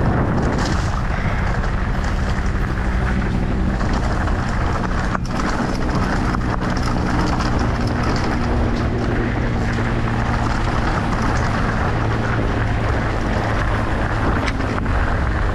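Motorcycle engine running steadily while riding, with heavy wind rumble on the microphone.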